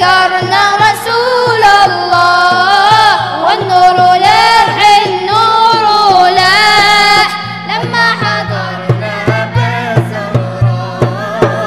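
A group of voices singing an Arabic devotional chant (inshad) in praise of the Prophet over a steady low drum beat. About two-thirds of the way through the voices drop back and the drum strokes stand out.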